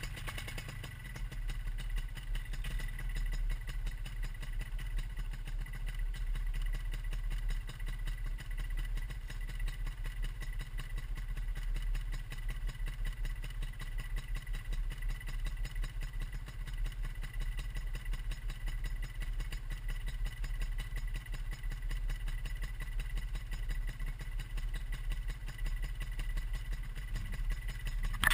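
Vittorazi Moster 185 paramotor's single-cylinder two-stroke engine idling steadily, its propeller turning. A brief loud burst comes right at the end.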